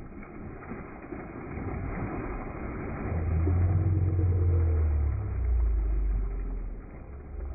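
Water splashing as large tarpon lunge up at the surface to take bait held over a dock edge, with a motor running underneath as a low steady hum that gets louder about three seconds in and drops in pitch about two seconds later.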